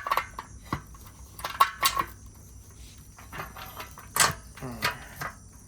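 Irregular metallic clinks and knocks of nuts, bolts and a tool against the sewing machine's metal stand as the nuts are tightened, with a sharp clink at the start and another about four seconds in.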